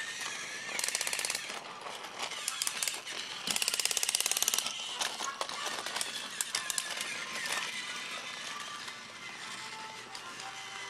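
Battery-powered TOMY Thomas toy train's motor and plastic gears buzzing with a rapid ratchety ticking in two short bursts, about a second in and again around four seconds in, amid scattered clicks of the plastic toy being handled.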